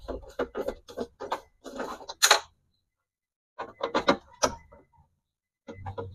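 Irregular metallic clicks and clinks of hand tools and hardware inside a stripped car door as the door glass is unfastened from the power-window regulator, with a break of about a second in the middle.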